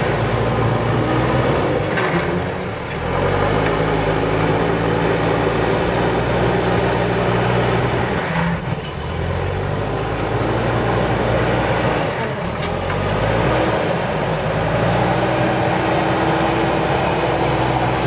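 JCB 3DX backhoe loader's diesel engine working under load as it pushes and levels mud with its front bucket. The engine note rises and falls as the machine drives forward and backs up, easing off briefly about three, eight and twelve seconds in.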